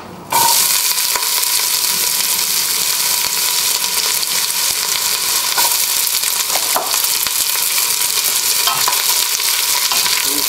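Chopped onions sizzling steadily in a hot stainless steel pot, starting suddenly about a third of a second in as they hit the hot fat, with the odd knock as they are moved about.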